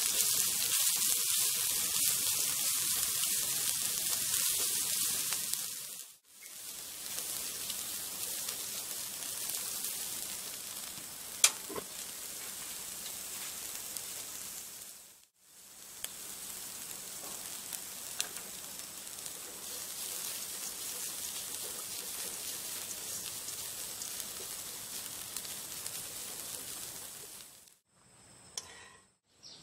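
Dried anchovies and chopped torch ginger flower sizzling as they are stir-fried in a wok, stirred with a silicone spatula. The sizzle is louder for the first few seconds and drops out briefly twice, with one sharp click about a third of the way in.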